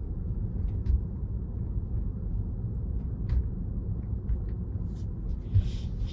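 Steady low road and tyre rumble inside the cabin of a moving Tesla Model 3, an electric car with no engine note, with a few faint ticks.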